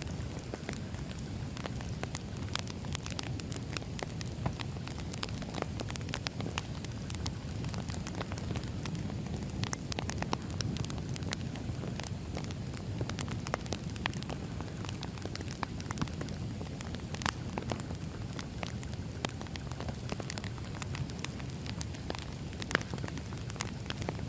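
Burning firewood crackling steadily, with a low rumble of flame and frequent irregular pops and snaps.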